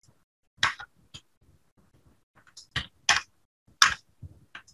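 Computer keyboard keys clicking during typing: scattered single keystrokes, some in quick pairs, with gaps of up to a second and a half between them.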